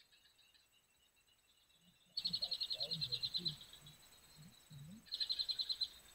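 An animal's high, rapid trill in two bursts: the first starts about two seconds in and fades after about a second and a half, and a shorter one comes near the end.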